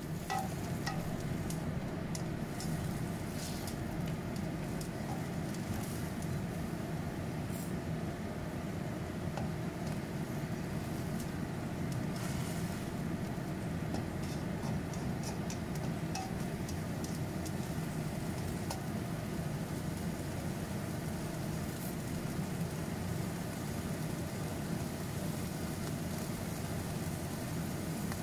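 Okra stir-frying in a nonstick wok over a gas burner: a steady low rush with light sizzling, and the spatula scraping and tapping against the wok a few times.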